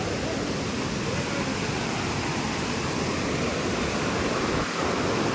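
Fast-flowing stream rushing over rocks: a steady, unbroken wash of water.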